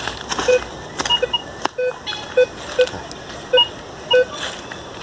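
Minelab Vanquish 440 metal detector giving short repeated beeps, about seven in five seconds, as it picks up a buried tin can. Between the beeps a small hoe scrapes and knocks in leaf litter and soil.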